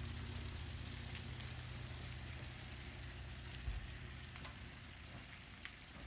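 Ford F-150 pickup towing a travel trailer at a crawl: a low engine hum with tyres crackling over grit on the road, slowly fading as it pulls away. A low thump comes partway through.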